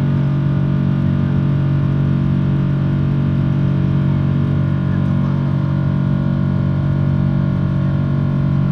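Steady drone of a Boeing 777-300's engines heard inside the cabin: a constant low hum made of several unchanging tones.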